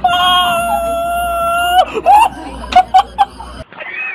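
A person screams in one long, high cry held for nearly two seconds, followed by a few short cries; the sound cuts off suddenly near the end.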